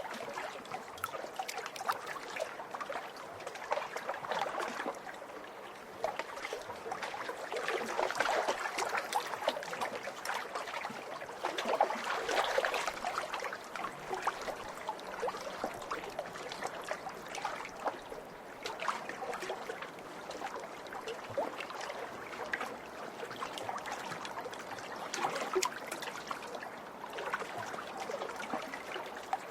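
Small lake waves splashing and lapping against the shore, a continuous watery splashing that swells and eases every few seconds.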